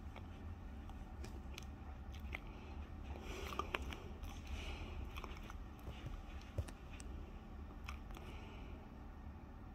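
Quiet indoor room tone: a steady low hum with scattered small clicks and ticks.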